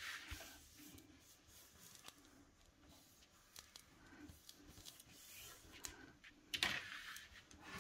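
Faint rustling of paper and hands as a freshly glued paper frame is pressed and smoothed flat onto patterned paper on a table, with a louder paper rustle near the end.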